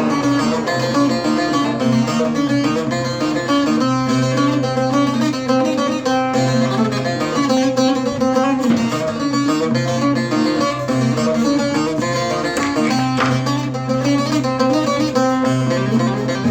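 Bağlama (Turkish long-neck saz) with a juniper-wood bowl being played: a quick plucked melody over a steady low drone string.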